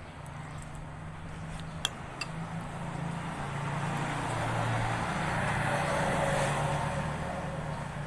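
Motor vehicle running with a steady low hum, its noise swelling in the middle and easing off again, like a vehicle passing close by. A couple of light clicks about two seconds in.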